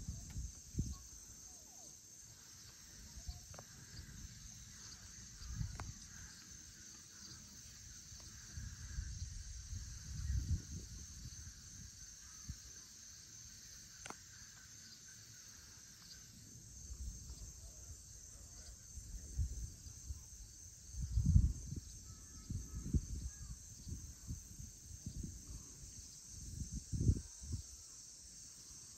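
Steady high-pitched chorus of crickets and other insects on an August evening, with a second, lower trilling that stops a little past halfway. Irregular low rumbles on the microphone come and go, the loudest about two-thirds and nine-tenths of the way through.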